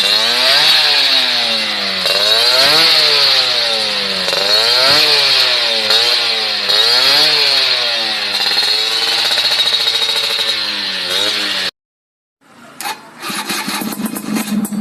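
Yamaha F1ZR two-stroke motorcycle exhaust revved over and over, the pitch climbing and falling back about once every second or so. It cuts off near the end, and after a brief gap another clip starts with a choppier, crackling exhaust sound.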